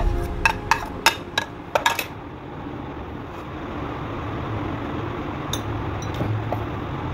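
A metal utensil clicking and scraping against a plate in a quick run of about ten light clicks over the first two seconds, then a steady low background hum with a couple of faint clicks.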